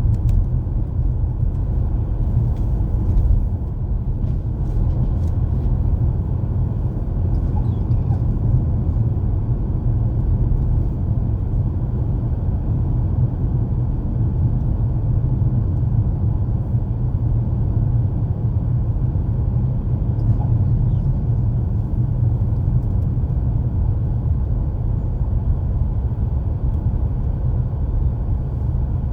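Steady low rumble of a car's engine and tyres on a snowy road, heard from inside the cabin, with a few faint clicks.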